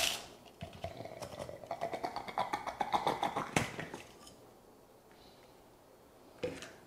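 Partly crushed ice rattling and sliding out of a plastic portable-blender jar onto a paper plate: a dense patter of small clicks for about three and a half seconds, ending in a sharper click. A single knock comes near the end.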